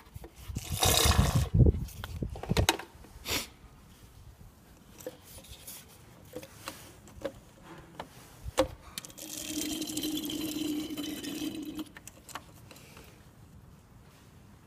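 Old power steering fluid being pumped through a syringe hose into a plastic bottle: a liquid squirting and gurgling sound for about three seconds near the middle. Around it are handling noises and clicks of the syringe and hose, with a louder burst of handling noise about a second in.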